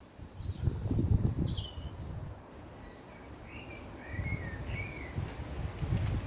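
Wild birds chirping and calling, with short high chirps and falling whistles early on and lower, two-note calls about midway. Underneath runs a loud low rumble that swells and fades, louder than the birdsong.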